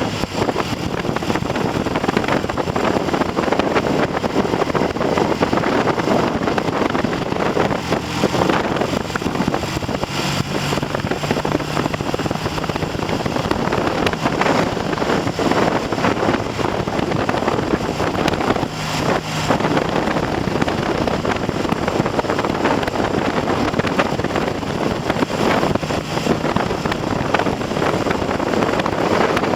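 Heavy wind noise on the microphone of a moving Triumph TR6 motorcycle, with the bike's parallel-twin engine running underneath. The engine note shows through only at moments, such as around ten and nineteen seconds in.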